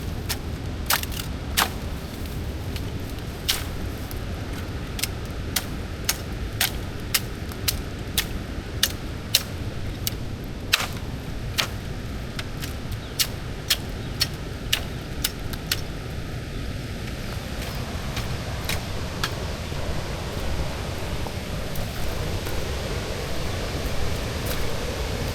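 Footsteps on hard ground at an even walking pace, about two sharp steps a second, over a steady low rumble of wind on the microphone. The steps stop about sixteen seconds in.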